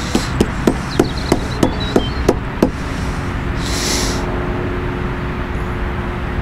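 A series of about ten light knocks, roughly three a second, stopping after about two and a half seconds, followed by a short hiss, over a steady low rumble.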